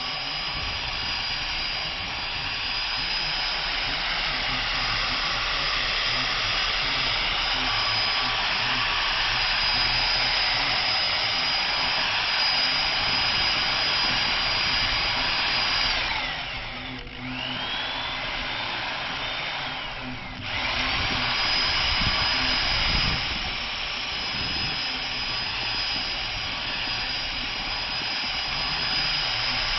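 Electric drill with a paddle mixer stirring a two-part waterproofing mixture, its motor whining steadily at high speed. A little past halfway it winds down to a slower, lower-pitched run for a few seconds, cuts out briefly, then spins back up to full speed.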